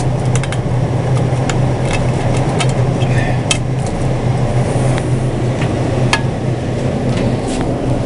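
Steady low machine hum from commercial refrigeration equipment, with scattered light clicks and taps from the freezer door and tubes being handled.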